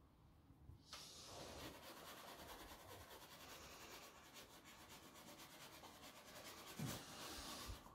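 Faint, steady scratchy rubbing of a paintbrush working thick paint into a canvas, starting about a second in, with a soft thump near the end.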